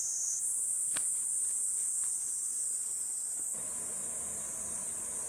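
Steady high-pitched chorus of insects, with one faint click about a second in.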